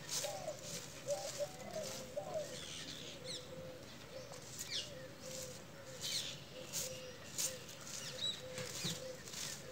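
Short-handled grass broom sweeping a dirt yard, a dry swish every half second or so. Birds call faintly in the background.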